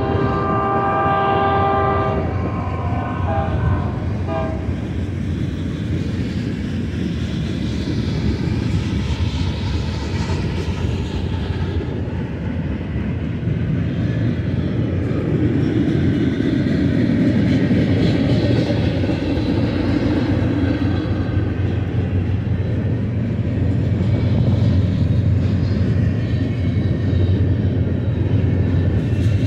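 Diesel locomotive air horn sounding a chord that cuts off about two seconds in and echoes away by about four seconds. Then freight cars of a mixed manifest train roll steadily past, with a continuous rumble of steel wheels on rail.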